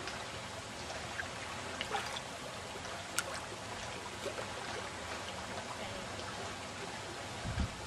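Water lapping against a kayak: a steady wash of small waves with a few faint light splashes.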